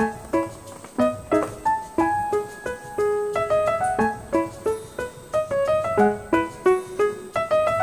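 Background piano music: a light melody of quick, separate notes, each one ringing out and fading.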